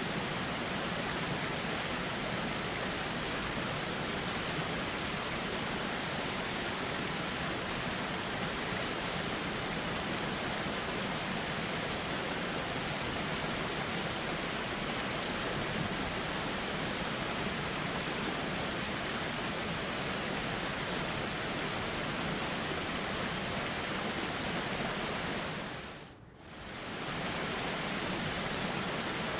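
Steady rushing of a flowing river, an even wash of water noise. About 26 seconds in it fades out to near silence for a moment and comes straight back, as at a loop seam.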